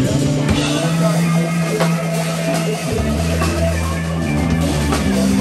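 Live jazz-funk band playing: an electric guitar lead over electric bass and a drum kit with cymbals. The bass holds long low notes and moves to a new note about halfway through.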